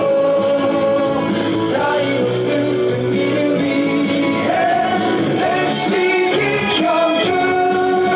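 A baseball batter's cheer song: upbeat music with a sung melody, playing steadily.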